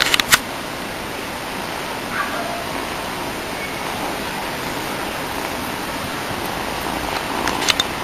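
Steady hiss of background noise, with a few sharp clicks at the start and again near the end.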